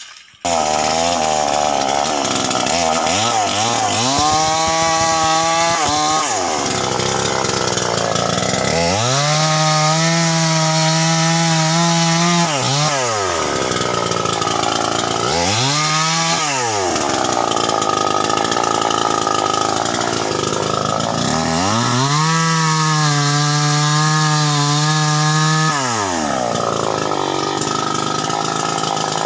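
Stihl 070 two-stroke chainsaw cutting through fallen tree limbs. It revs up to full throttle and holds there for a few seconds each time, four times in all (the third only briefly), and drops back to a lower speed in between.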